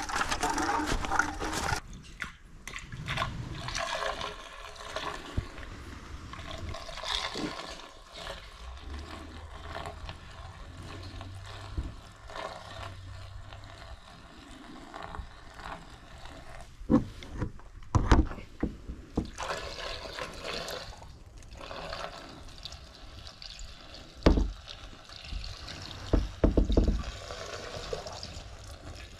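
Maple sap pouring from a plastic container into a plastic collection tank, a steady trickle and splash as the tank fills. Footsteps in the first couple of seconds, and a few knocks of the containers later on.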